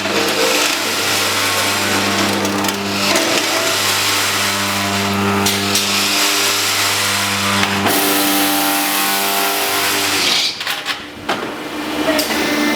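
Four-block hydraulic concrete block press machine running, a steady motor hum. About eight seconds in a loud hiss joins for a couple of seconds, then the level dips briefly before the hum returns.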